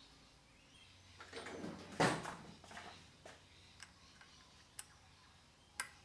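A rustling clatter of a steel spanner being picked up and handled, loudest in a single knock about two seconds in. Then a few light, sharp metallic clicks about a second apart as the spanner is fitted onto a brass jet in an aluminium motorcycle carburettor body and worked.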